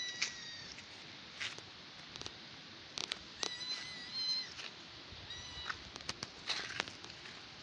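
Kitten mewing, several short high-pitched mews spread across a few seconds, with scattered sharp clicks in between.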